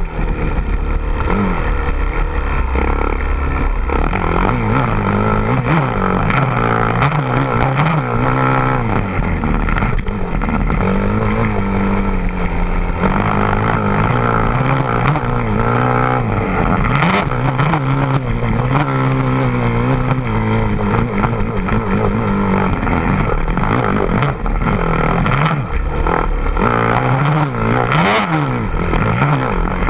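A motor vehicle's engine running continuously, its pitch rising and falling as it revs up and eases off.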